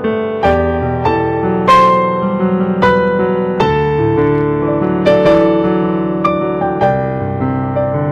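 Solo piano music: slow, sustained chords with a melody above, a new chord struck about once a second.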